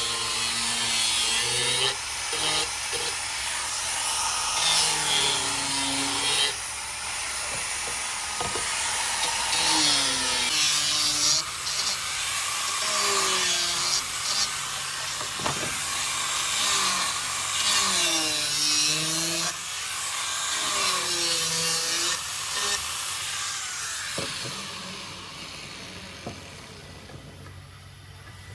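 Power tool cutting wood, its motor pitch dipping and recovering over and over as it bites into the stock.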